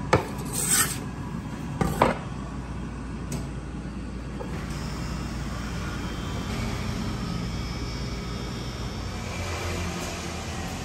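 A few sharp knocks in the first two seconds or so as a flat metal blade presses dough flat against a wooden work table, with one more about three seconds in. Then a steady low background rumble.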